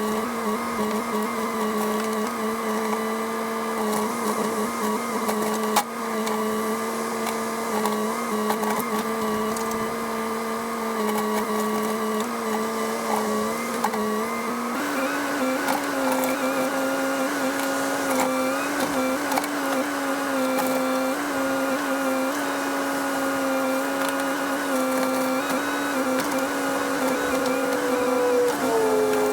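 Cat 308 excavator running with a steady whine. The pitch steps up about halfway through and falls back a little near the end.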